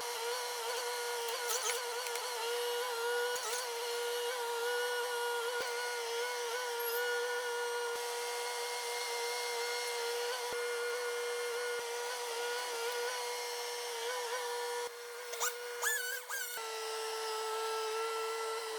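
A small electric motor running with a steady whine that wavers slightly in pitch, dropping a little in pitch near the end, with a few short scraping noises shortly before.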